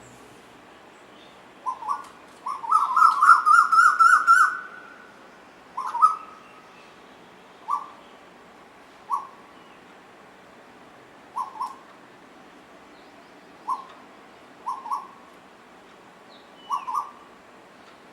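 Asian koel calling: a quick run of about ten notes rising slightly in pitch a couple of seconds in, then short single and paired notes every second or two.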